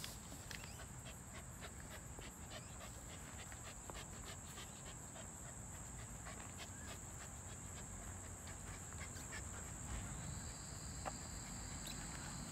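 Steady high-pitched insect drone. Faint, scattered clicks and taps come through it, and a second, slightly lower steady insect tone joins near the end.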